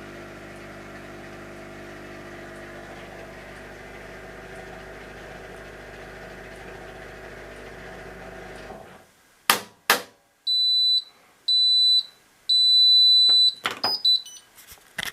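Hotpoint NSWM 843C washing machine at the end of its spin cycle. A steady machine hum stops about nine seconds in. Two loud clicks follow, then three high electronic beeps, the last one longer, and a few more clicks near the end.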